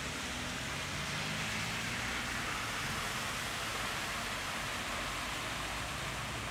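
Cars driving slowly through shallow floodwater: a steady hiss of tyres swishing and spraying water, over a low engine hum.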